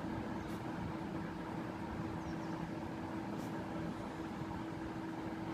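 Steady background hum and hiss holding one constant low tone, with a couple of faint clicks.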